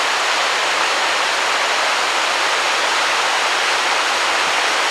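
Steady rushing of river water, an even unbroken noise.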